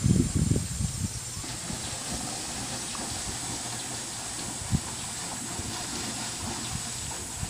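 Swimmer splashing down a pool, heard as a steady hiss. Low handling rumble on the microphone in the first second, and a single knock near the five-second mark.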